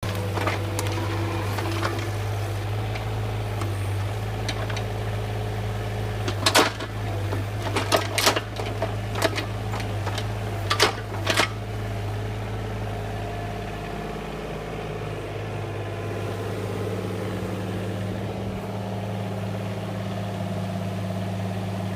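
Heavy machinery engine running steadily, with several sharp clanks and knocks about a third to halfway through; its note shifts a little about two-thirds of the way in.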